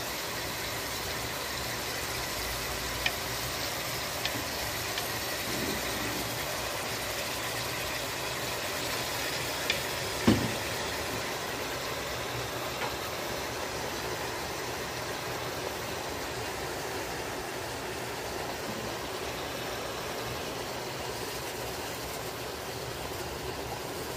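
Steady hiss of the hare stew pot cooking on the stove, with a few light clicks and one sharper knock about ten seconds in.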